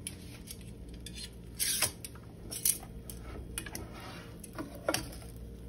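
A few short clacks of metal kitchen tongs and the pulled-out air fryer basket being handled, over a steady low hum.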